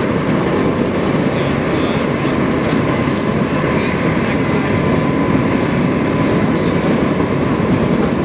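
Helicopter engines running: a loud, steady rumble with a faint steady turbine whine.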